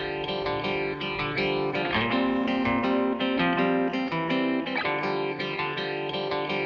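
Background music led by a plucked guitar with an effects-unit tone.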